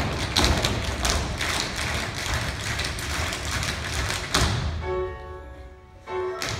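Tap shoes of a large group of dancers striking a stage floor in unison, in quick rhythmic runs, over backing music. About five seconds in the tapping stops and held notes of the music sound alone for a second or so.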